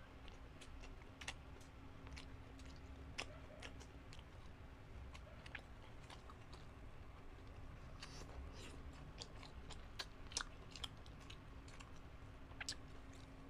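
Close-miked chewing of grilled isaw and betamax: soft wet mouth clicks and smacks scattered irregularly, over a faint steady hum.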